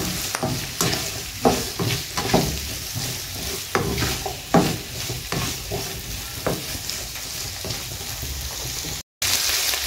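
Onions and bell peppers sizzling in oil in a nonstick frying pan, stirred with a plastic slotted spatula in irregular scraping strokes. Near the end the sound cuts out for a moment, then the sizzling goes on steadily.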